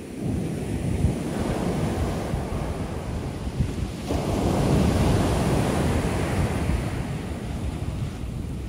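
Ocean shore break on a sandy beach. A wave's foam washes up the sand, then about four seconds in another wave breaks close to shore and its wash surges up the beach, the loudest part, before easing off.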